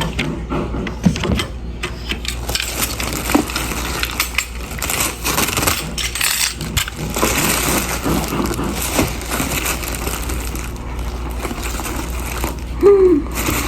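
Packaging being opened and handled by hand: continuous crinkling and rustling of plastic and paper wrapping, with scattered small clicks and taps.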